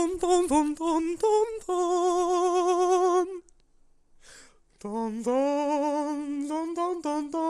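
A man's voice warbling sustained, wavering notes with heavy vibrato on a repeated syllable, in short phrases. It breaks off for about a second and a half a little after three seconds in, then starts again.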